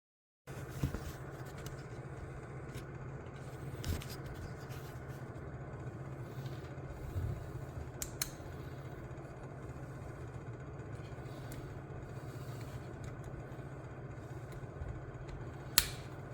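Steady low hum of room tone with a few light clicks and taps of parts and tools being handled, the sharpest click near the end.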